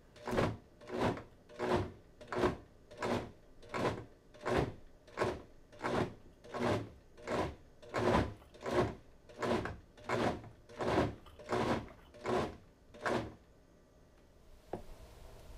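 Blendtec Designer 725 blender motor run in short pulses, about nineteen quick spin-ups at a steady rhythm of roughly one and a half a second, chopping thick pea soup with added vegetables to a chunky texture. The pulsing stops about two seconds before the end.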